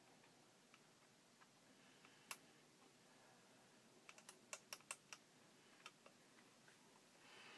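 Faint scattered light clicks over quiet room tone: a single click about two seconds in, then a quick run of about seven between four and five seconds in. A soft rubbing sound begins at the very end.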